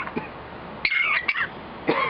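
A pet bird mimicking a human cough, giving a quick cluster of short cough-like calls about a second in.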